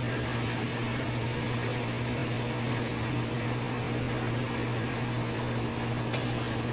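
Espresso machine steam wand hissing steadily as it froths milk in a stainless steel pitcher, over a steady low hum.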